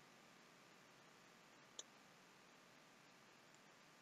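Near silence: faint room tone, with a single computer mouse click a little under two seconds in.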